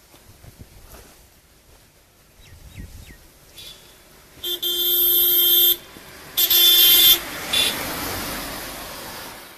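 Car horn sounding twice, a long blast of over a second and then a shorter one, as a car approaches. The car then passes close by with a swell of road noise that fades away.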